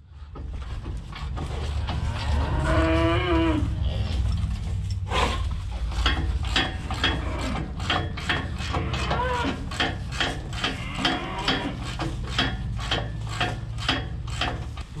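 Young beef bulls mooing in a barn, one long wavering moo early on and a shorter one later, over repeated sharp metallic knocks about two a second and a steady low hum.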